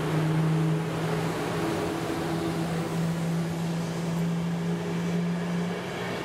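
EP09 electric locomotive and its passenger coaches passing close by at speed: a steady low hum with the noise of wheels on the rails.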